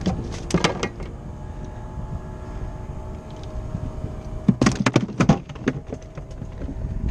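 Clattering knocks of gear being handled in a small fibreglass boat, in two bursts, about four seconds apart, over a steady low hum.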